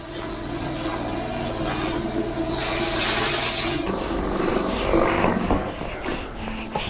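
Steady drone of a running motor, with a stiff broom scrubbing wet stone paving and a stretch of hiss about two and a half seconds in.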